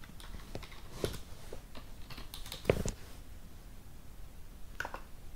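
Typing on a computer keyboard: a run of irregular keystrokes in the first three seconds, one of them louder, then a few more near the end.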